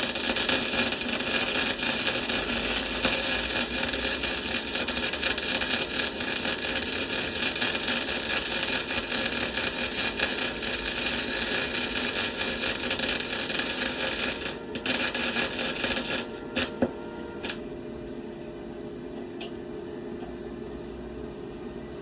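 MIG welder laying a bead on thin steel: a steady crackling sizzle for about fourteen seconds, then a short second burst after a brief stop, and a few pops before the arc stops, leaving a low steady hum. The thin metal is burning through even at low voltage.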